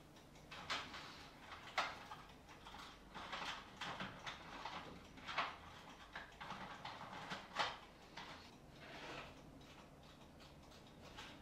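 Rustling of paper and light knocks of small objects being handled at a desk, in scattered short bursts with a few sharper clicks.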